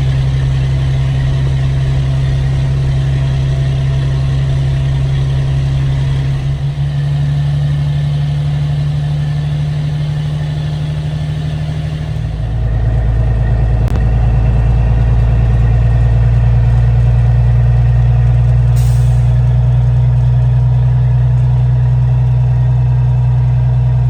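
Semi truck's diesel engine running steadily with a deep hum; about halfway through its note drops slightly and gets louder. A single click follows soon after, and a brief hiss comes a few seconds later.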